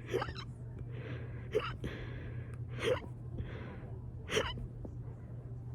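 A woman's burp-induced hiccups: four short, sharp hics, about one every second and a half, with soft breaths between them.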